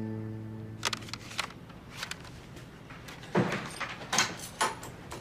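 Scattered short knocks and thumps of things being handled and set down, about six in all, the heaviest two about three and a half and four seconds in. A soft music tail fades out at the very start.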